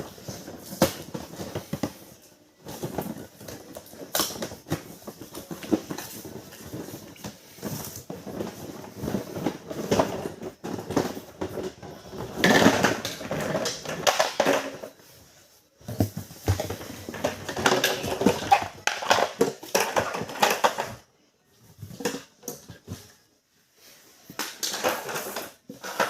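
Hard plastic parts of a toy cleaning trolley clattering, knocking and rattling as they are handled, in irregular bursts broken by short pauses.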